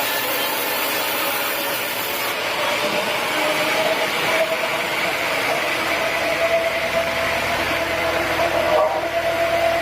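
Sawmill saw running through teak wood. The cutting hiss drops away about two seconds in, and the machine runs on with a steady hum.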